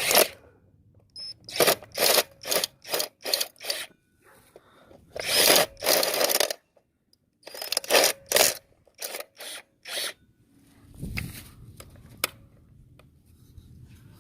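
Hands working a part of a gauge mount loose: a string of sharp clicks and knocks, with a longer scraping stretch about five seconds in.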